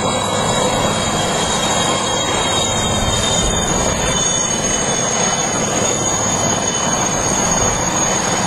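Military transport helicopter hovering low: steady turbine whine with a high ringing tone over a dense rotor and engine rumble.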